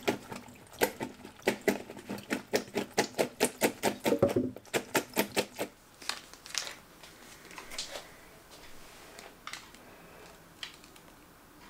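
Quick, even run of sharp taps from kitchen work, about four a second for some five seconds, then a few scattered clicks.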